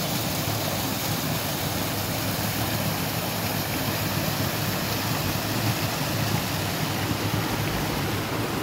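Steady rushing and splashing of a mountain river's small cascade pouring over stepped rock ledges.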